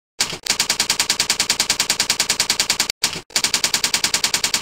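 Rapid, evenly spaced typewriter-style key clicks, about a dozen a second: a typing sound effect for text being written onto the screen. It breaks off briefly about three seconds in, then carries on.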